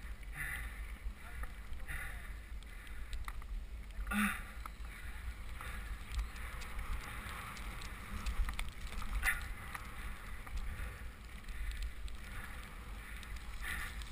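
Specialized Demo 8 I downhill mountain bike ridden over a wet, muddy trail, heard from a camera mounted low on the bike. Continuous rattling and tyre noise over a steady low wind rumble, with sharper knocks about four and nine seconds in.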